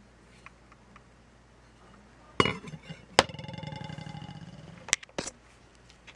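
A knock about two seconds in, then a sharp metallic clink that rings on in several tones and fades over under two seconds, followed by two more clicks: metal being handled and set down on a hard surface.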